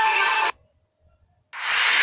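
Meme sound-effect clips edited back to back: a pitched, music-like clip cuts off abruptly about half a second in, then after about a second of silence a short burst of hiss-like noise starts near the end.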